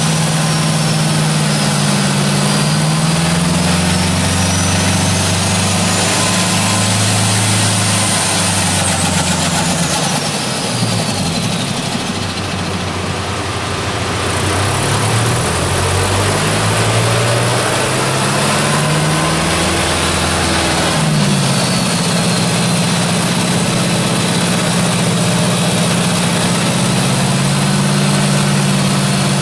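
Turbocharged Mazda FE3 four-cylinder engine running at steady revs, its speed wavering up and down for a while about a third of the way in before settling again, with a faint high whine rising and falling above it.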